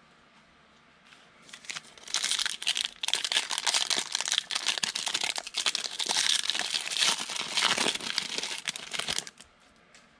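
Foil wrapper of a football trading-card pack being torn open and crinkled in the hands, starting about two seconds in and stopping about a second before the end.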